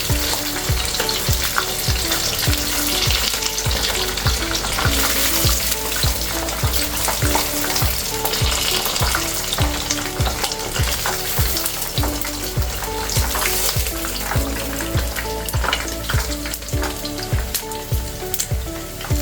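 Chicken wings deep-frying in hot oil: a steady, dense crackling sizzle.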